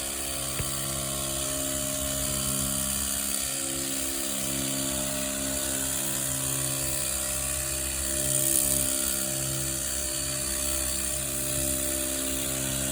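Cordless battery-powered pressure washer running steadily, its pump motor humming under the hiss of the water spray.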